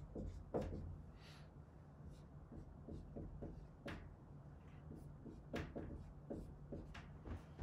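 Dry-erase marker writing on a whiteboard: faint strokes and a scatter of small, sharp clicks as the tip meets the board.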